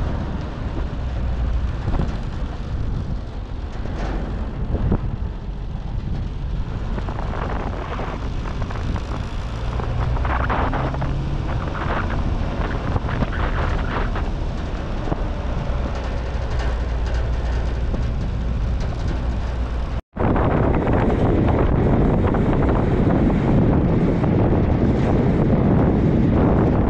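Wind buffeting the microphone as a low rumble, with scattered faint knocks. After a cut about twenty seconds in, a louder, steady rush of wind.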